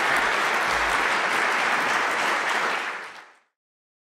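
Audience applauding steadily, fading out about three seconds in.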